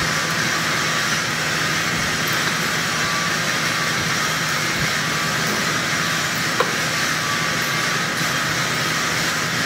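Small belt-driven thread-cutting machine running steadily: a constant motor-and-belt hum with even mechanical noise over it, and a light metallic click about two-thirds of the way through.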